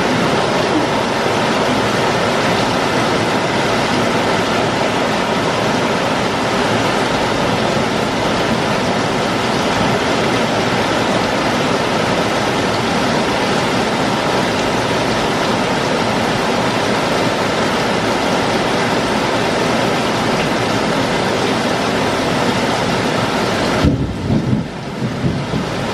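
Heavy rain pouring down in a steady, loud hiss. About two seconds before the end a thump breaks it, and the high part of the hiss falls away, leaving a lower, uneven rush.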